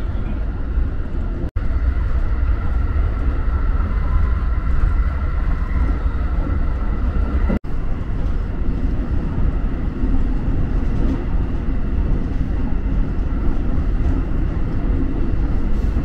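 JR West Type 223 electric train running along the line, heard from inside the car: a steady low rumble of wheels on rail with a faint steady whine above it. The sound cuts out for a split second twice.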